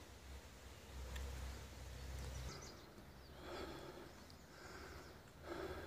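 Faint outdoor ambience: a low rumble on the microphone, most likely wind, that stops about two and a half seconds in, then a few faint, indistinct sounds.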